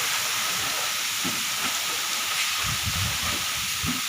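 Steady hiss of falling water spraying down like heavy rain, with a few soft low thuds near the middle.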